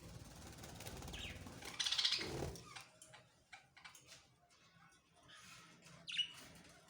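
Budgies chirping, with a burst of fluttering, rustling noise in the first couple of seconds and a short chirp near the end.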